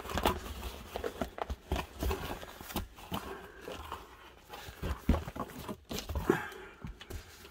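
A postal parcel being handled and opened: irregular rustling, crinkling and tapping of the packaging.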